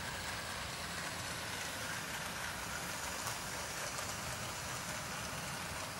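Bachmann OO gauge Edward model locomotive running along the track with its coaches: a steady rolling noise of wheels on rails.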